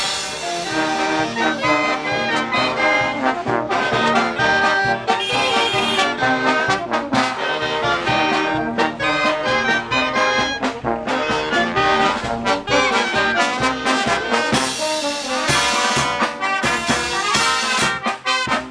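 Peruvian brass band playing a corrido huarochirano, loud massed horns over a steady beat.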